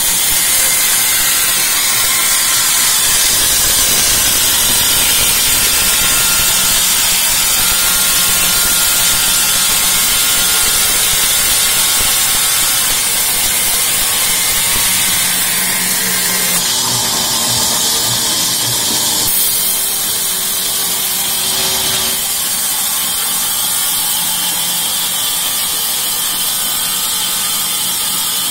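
Sawmill band saw running through an acacia log: a steady, loud hiss of the blade cutting, with the machine's hum beneath it.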